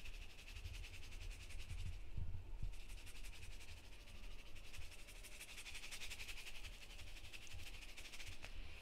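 A faint, steady fine rattling of Cajun seasoning being shaken from a spice shaker can and sprinkling onto raw meat.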